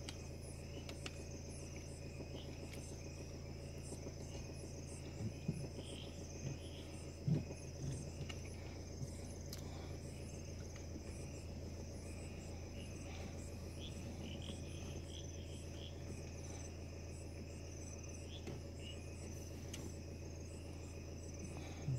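Crickets chirping steadily, a continuous high trill, over a low steady hum. Twice, about a third of the way in, a brief low sound stands out.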